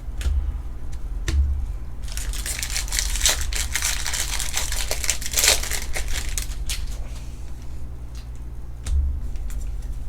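Plastic trading-card pack wrapper crinkling and being crumpled, densest in the middle stretch, with a few dull knocks near the start and the end.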